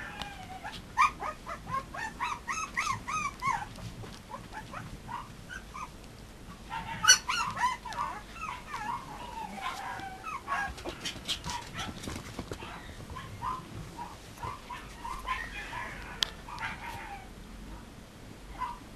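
Three-to-four-week-old mame shiba puppies whimpering and yipping in short, high, squeaky rising-and-falling calls, coming in bursts with pauses between, along with a few soft clicks.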